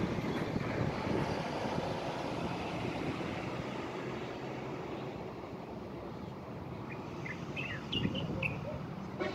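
Steady outdoor noise of wind on the microphone and distant road traffic, with a few short, high bird chirps near the end.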